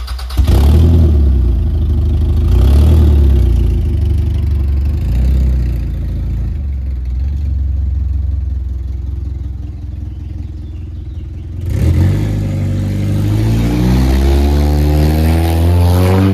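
Car engine running loud and close, higher for the first few seconds and lower through the middle. Near the end it accelerates, its pitch rising steadily for about four seconds.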